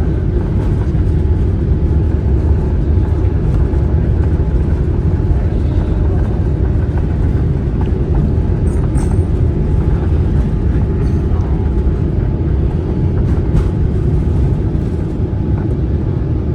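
Steady low rumble of airliner cabin noise: jet engines and airflow heard from inside the passenger cabin, with a faint steady whine.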